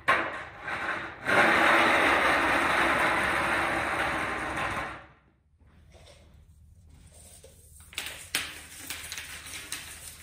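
A loud rubbing, scraping noise of wood sliding on wood for about four seconds, fading before it stops. Near the end come a few clicks and rattles as a steel tape measure is pulled out across a large board.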